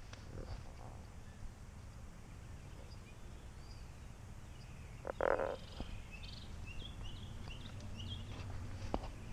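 Outdoor ambience: small birds chirping in short high bursts over a low steady rumble, with one louder short animal call about five seconds in and a few light clicks near the end.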